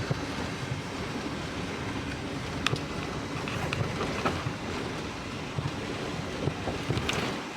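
Steady rushing noise, wind-like, with a few faint clicks about three seconds in and near the end.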